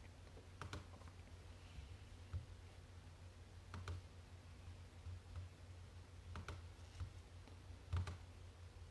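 Quiet room with a low steady hum and four faint, sharp clicks or taps spread a couple of seconds apart.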